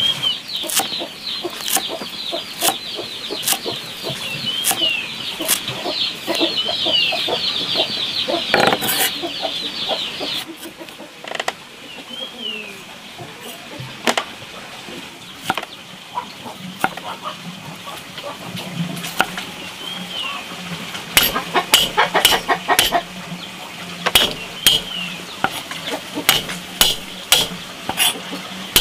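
Chicks peeping in a dense, high chorus for the first ten seconds or so, then only now and then. From about twenty seconds in, a cleaver strikes a wooden cutting board in quick runs of chops, louder than the peeping.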